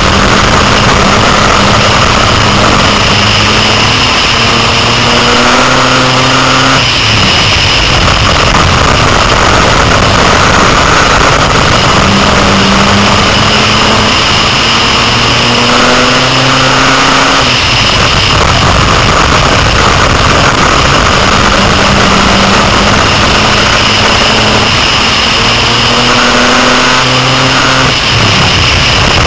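Six-cylinder dirt-track race car's engine heard from inside the car, revving up with rising pitch for several seconds and then dropping off abruptly, three times about ten seconds apart: accelerating down each straight and lifting into the turns of the oval. Loud steady wind and track noise runs under it throughout.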